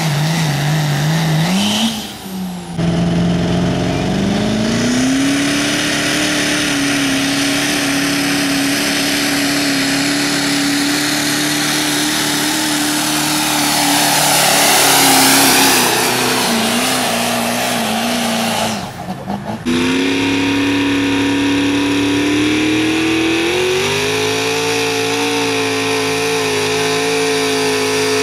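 Diesel pickup trucks pulling a weight-transfer sled at full throttle, engines held at high revs in a steady loud drone. The pitch climbs as each pull gets under way. There are brief breaks about 2 s and 19 s in as one truck's run gives way to the next.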